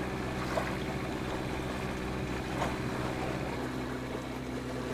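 Sailboat's engine running steadily as the boat motors through calm water, with water swishing past the hull and a few small splashes. The engine note shifts slightly about three and a half seconds in.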